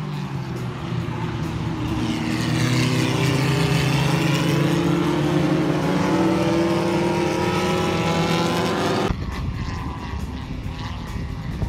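Several vintage race cars passing close by, their engines swelling and climbing in pitch as they accelerate out of the turn, loudest in the middle. About nine seconds in, it cuts abruptly to a fainter, more distant engine drone.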